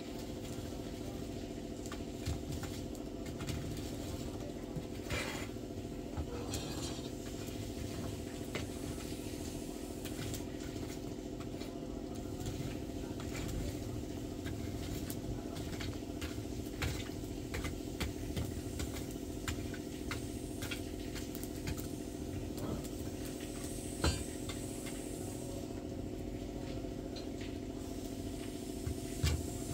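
Wood fire crackling in a clay hearth with scattered sharp clicks and a few knocks, over a steady mechanical hum.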